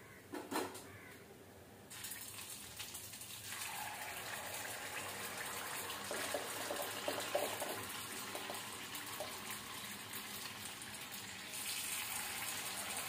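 Spoonfuls of dosa-batter bonda batter dropped into hot oil in a cast-iron kadai, sizzling steadily as the oil froths around them. A short metal clink comes just after the start. The sizzle begins about two seconds in and grows louder near the end as more batter goes in.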